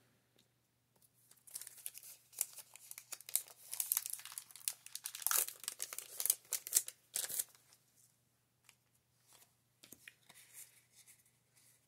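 The foil wrapper of a Pokémon card booster pack crinkling and tearing as the pack is opened and the cards are pulled out, a dense crackle that lasts about six seconds. A few faint card rustles follow near the end.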